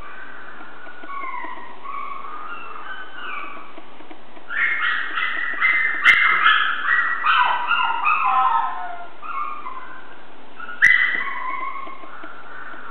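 Chihuahua puppies making high-pitched whines and yips, with a louder run of rapid yips for several seconds in the middle. Two sharp clicks, one in the middle and one near the end.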